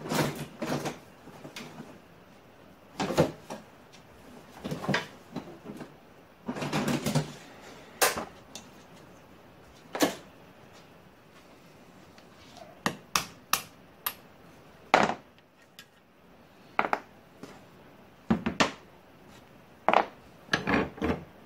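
Hammer and punch driving out the pin that holds the plastic tilting block on a cast aluminium clamp in a bench vise: sharp taps and knocks at irregular intervals, some in quick runs of two or three.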